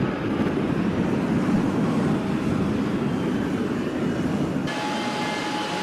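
F/A-18 jet's engines running at high power on the catapult before launch: a loud, steady jet noise. About four and a half seconds in, it gives way abruptly to a quieter jet whine with a few steady tones.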